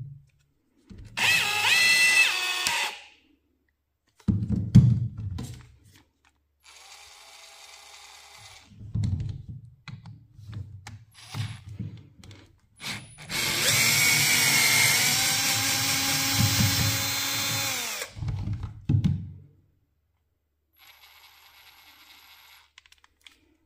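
Cordless drill motors running in two bursts, a short one near the start and a longer one of about four seconds in the middle, as a drill chuck's retaining screw is backed out. Knocks and handling thuds come in between.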